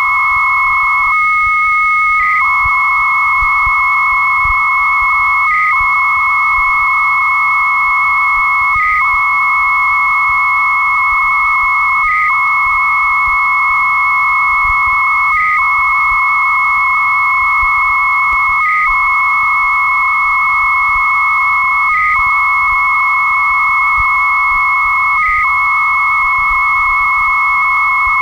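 Two 300-baud modems exchanging data over a phone line during a file transfer, recorded off the line via a cassette answering machine: a steady high carrier tone runs under a dense warbling data tone, which breaks off briefly about every three seconds.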